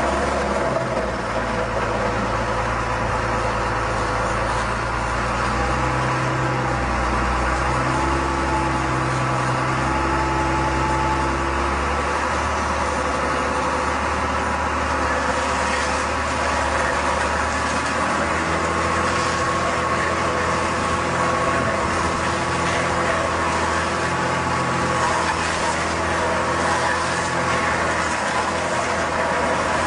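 An engine running steadily at a near-constant speed, its pitch shifting slightly every few seconds.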